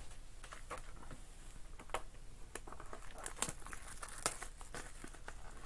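Foil wrapper of a baseball card pack being torn open and crinkled by hand, with scattered crackles and a sharp snap near the end.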